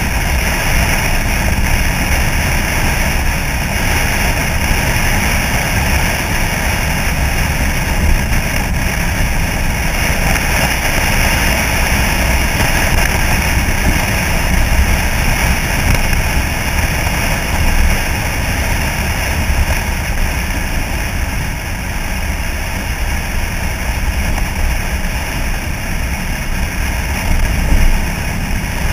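1964 Chevy C-10 pickup driving at a steady speed: a constant rush of wind on an outside-mounted camera with the truck's engine and road noise underneath. The level holds steady, with brief small peaks about 8 and 28 seconds in.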